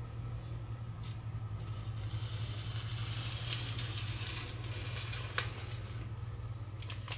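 A folded stack of paper banknotes rustles and scrapes as a hand drags it across a wooden tabletop and picks it up, with a sharp click near the end, over a steady low hum.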